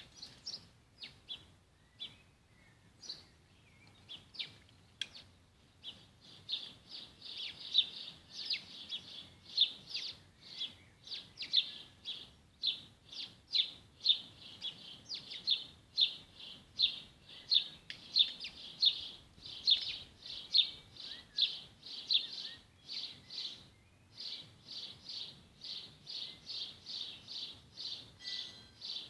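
A bird calling over and over: short high chirps, scattered at first, then repeated steadily at about two or three a second from around six seconds in.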